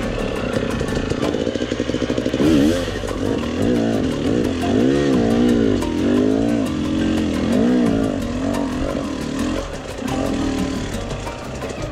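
Enduro motorcycle engine revving up and down again and again as the bike rides, its pitch rising and falling roughly every second or two.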